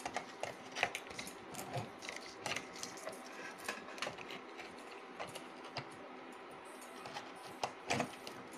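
Handling noise from the recording phone and cable plugs being moved by hand: irregular small clicks and taps, with two louder knocks near the end.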